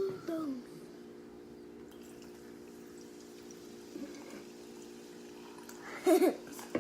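Soda poured into a cup of ice, a faint steady fizz and trickle over a low steady hum. A cat gives a brief meow about six seconds in.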